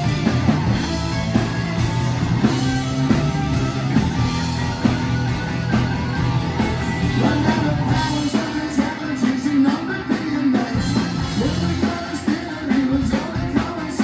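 Live rock band playing: electric guitars, electric bass and a drum kit, with a man singing lead.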